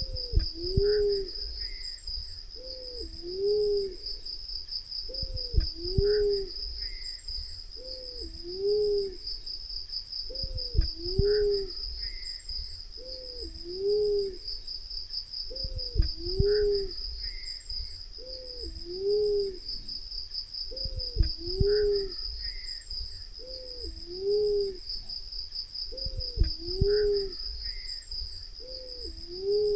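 Black-naped fruit dove cooing: a low two-note coo repeated about every two and a half seconds, over a steady high insect trill. A short low thump sounds about every five seconds.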